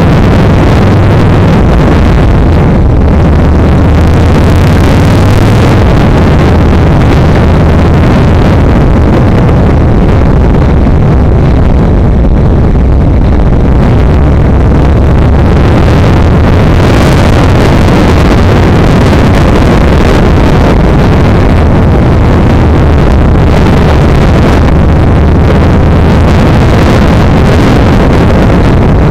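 Yamaha XVS1300 motorcycle's V-twin engine running steadily and loudly while riding, with wind noise over it.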